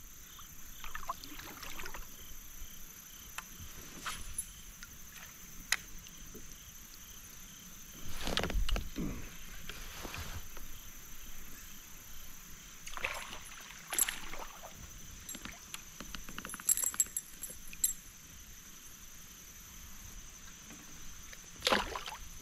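Kayak on the water with scattered splashes and knocks, a few seconds apart, over a quiet steady background.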